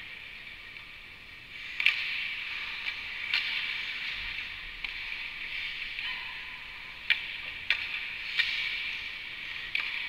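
Ice hockey skates scraping and hissing on rink ice, growing louder about two seconds in, with about six sharp clacks scattered through.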